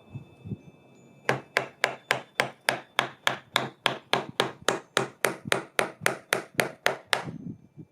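Hammer striking a nail into wooden framing, a steady run of about twenty sharp blows at three to four a second that stops near the end.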